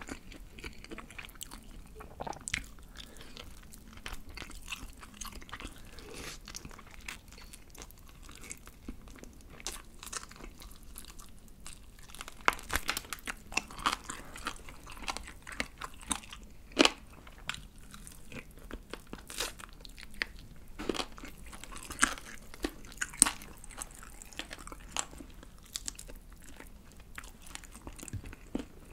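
A person chewing crispy fried chicken close to the microphone. The batter crunches in irregular sharp crackles, denser and louder through the middle of the stretch.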